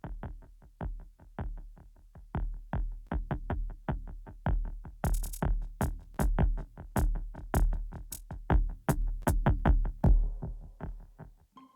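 Electronic music: a drum-machine beat of sharp hits over deep bass.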